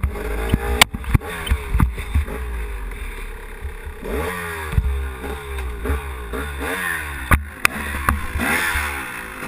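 Dirt bike engine lugging and revving up and down repeatedly through a creek crossing in second gear, bogging down and nearly stalling. Sharp knocks ring out a few times, loudest near the start and about two-thirds of the way through.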